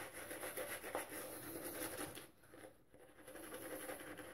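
Boar-bristle shaving brush working wet shaving-soap lather on a face: a faint, crackly squishing. It stops for about a second a little past two seconds in, then starts again.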